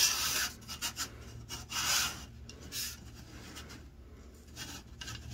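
Plastic model-kit sprues being handled, rubbing, scraping and knocking against each other and the cutting mat. The loudest scrapes come at the start and about two seconds in, with lighter clicks and rustles between.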